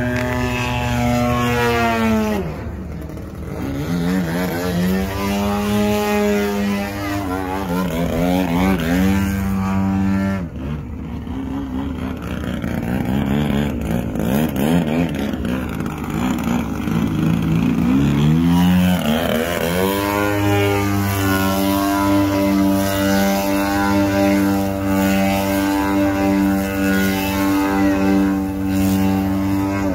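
Engine of a radio-controlled model airplane in flight, its pitch sweeping steeply down as it passes by, about two seconds in and again about two-thirds of the way through. It then holds a steadier drone for the last ten seconds.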